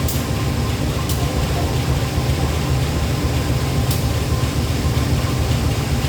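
Diesel-electric locomotive engine running steadily with a deep, even rumble, and a few faint ticks over it.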